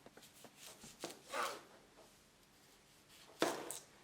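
Knife cutting an onion on a chopping board: a few irregular cuts and scrapes, with the loudest knocks near the end.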